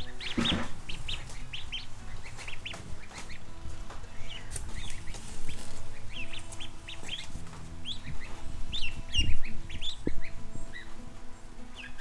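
Ducklings peeping in a brooder, a steady run of short, high, upward-flicking cheeps. There is a low bump about nine seconds in.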